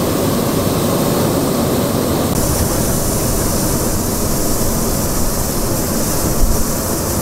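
Steady roar of hot air balloons being heated and inflated at the launch field, from propane burners and inflation fans. The hiss grows brighter about two seconds in.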